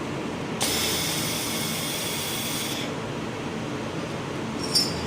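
Fiber laser welder firing: a loud, even hiss starts sharply and runs for about two seconds before cutting off, over the machine's steady running hum. A short sharp click comes near the end.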